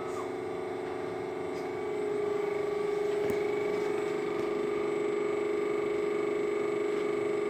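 Steady mechanical hum with a fine flutter, growing louder about two seconds in, with a faint click a little after.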